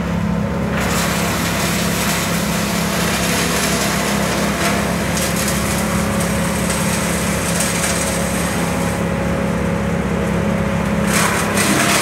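Tow-behind wood chipper's engine running steadily with a low drone. A rushing noise rides over it from about a second in, drops away for a couple of seconds near the end, then returns.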